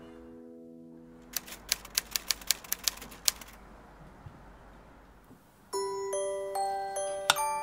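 A run of about ten quick, sharp typewriter key clicks, an editing sound effect, after a music chord fades out. Near the end a bell-like mallet-percussion melody begins.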